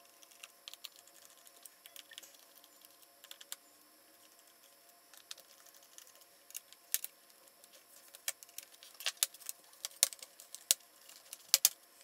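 Scattered light clicks and taps of a screwdriver working the screws of a Lenovo ThinkPad P50's plastic bottom cover and the cover being lifted off, sparse at first and busier in the last few seconds.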